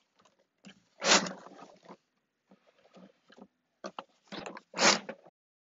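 Paper fibre rush strands being pushed and pulled through the woven seat and against the cardboard padding: scattered rustling and scraping, with two louder swishes, about a second in and near the end.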